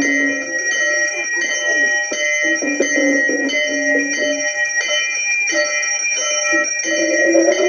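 Temple bells ringing continuously during an aarti, struck again and again, over a lower melody of held notes.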